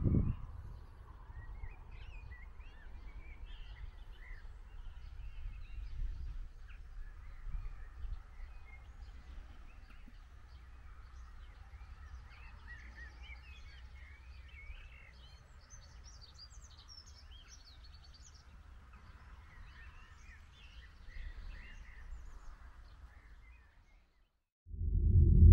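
Small birds chirping and singing in quick, scattered calls over a faint low rumble, cutting to silence near the end.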